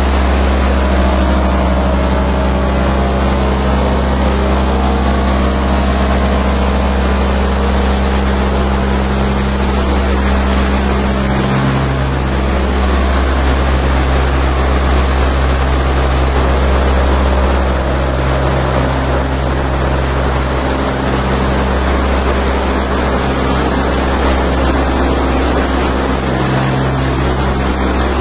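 Loud live electronic noise music: a heavy, steady low bass drone under a dense wash of hiss and crackle, with a low hum that swells and fades a few times.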